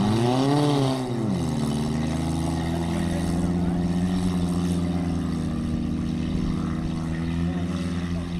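Small nitro engine of a radio-controlled school-bus truck revving up and back down once near the start, then running at a steady high buzz as it struggles through a muddy field.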